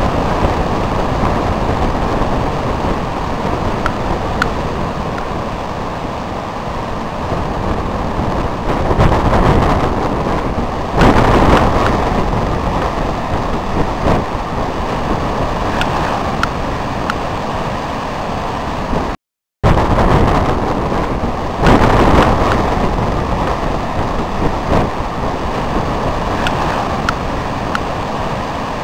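Heavy ocean surf breaking below a cliff, a steady rushing roar mixed with wind on the microphone. It swells a third of the way in and again just after the middle, and cuts out for a moment just past the middle.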